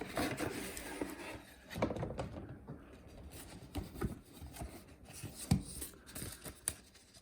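Model train box and its paper packaging being handled: rustling with scattered light taps and knocks.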